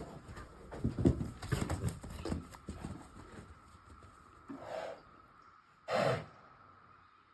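Horse hoofbeats thudding irregularly for the first few seconds as the horse runs about, then two short snorts, the second louder, about six seconds in.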